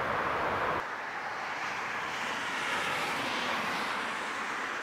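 Jet airliner engines at takeoff power: a twin-engine freighter climbing out, then an abrupt cut about a second in to an Airbus A330 on its takeoff roll. The A330's engine rush has a hiss that swells and fades around the middle.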